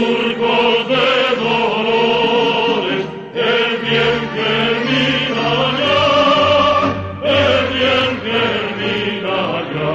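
Background music with sustained, choir-like singing held in long wavering notes, in phrases that break off briefly about three and seven seconds in.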